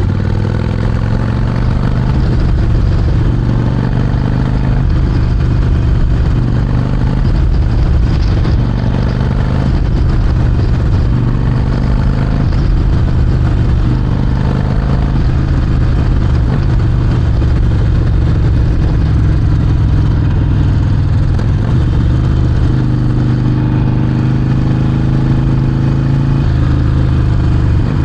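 Harley-Davidson Sportster 48's 1200 cc V-twin running steadily through a Vance & Hines exhaust while being ridden. The engine note changes briefly about three-quarters of the way through.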